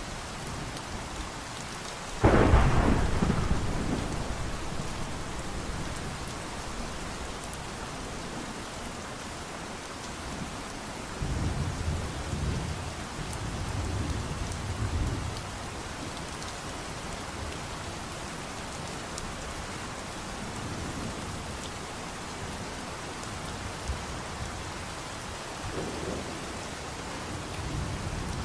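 Steady rain falling, with thunder. A sharp, loud thunderclap comes about two seconds in and dies away over a second or two, and several lower, softer rumbles of thunder follow later.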